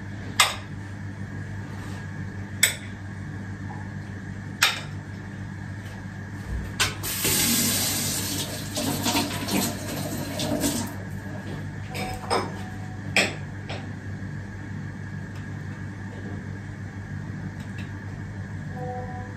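Kitchen tap running into the sink for about four seconds midway, with a few sharp clinks and knocks of dishes before and after, over a steady low hum.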